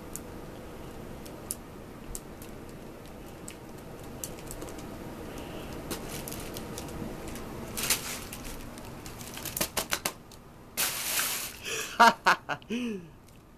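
Fabric cat play tunnel rustling and crinkling in bursts as a cat pounces on it, the loudest bursts in the last few seconds, after scattered light clicks.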